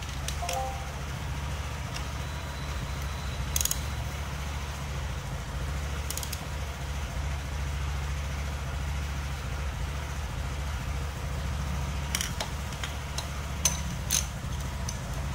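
A few sharp metallic clicks from a socket tool on the motorcycle's flywheel nut as the crankshaft is turned by hand, over a steady low background hum.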